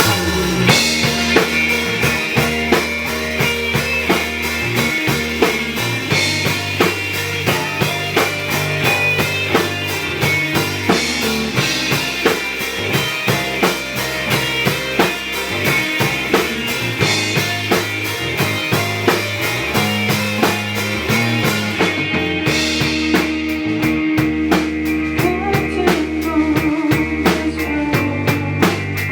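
Live rock band playing: drum kit keeping a steady beat over sustained bass notes and guitar, with the cymbal wash giving way to crisp, evenly spaced strokes about two-thirds of the way through.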